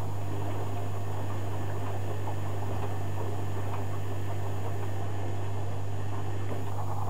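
Zanussi FJ1093 Jetsystem front-loading washing machine tumbling a cotton wash: the drum turns the laundry through water with an even swishing over a steady low hum.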